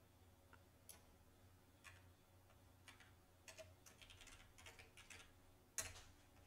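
Faint computer keyboard typing: a few separate keystrokes, then a quick run of them from about three and a half to five seconds in, and one louder key press near the end.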